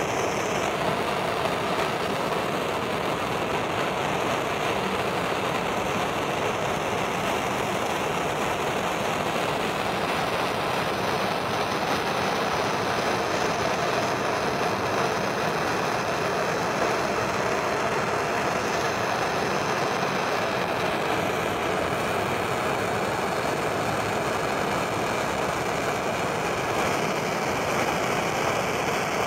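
Handheld propane torch on a camp propane cylinder, its flame hissing steadily as it chars oak wood.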